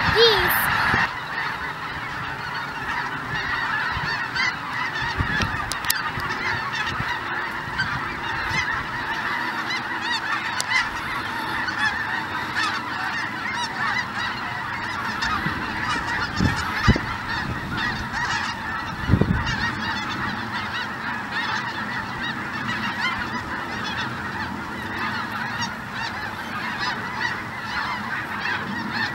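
A huge flock of geese calling all together, a dense continuous clamour of overlapping honks. Two brief low thumps stand out a little over halfway through.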